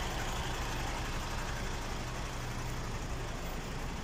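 Heavy diesel truck engine idling: a steady low hum under an even background noise.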